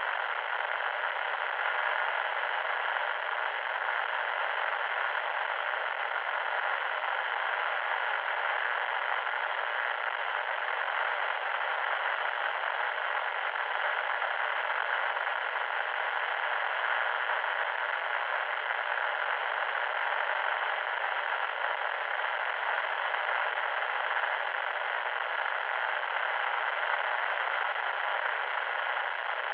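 Loud static noise: a steady, even hiss confined to the middle range, with no low rumble and no sharp top.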